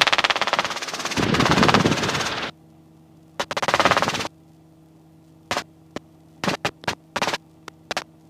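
Robinson R22 helicopter cockpit noise, a rapid rotor-and-engine chatter, heard through the headset intercom. It cuts off abruptly about two and a half seconds in, leaving only a low hum. It comes back for about a second, then in several short snatches as the intercom gate opens and closes.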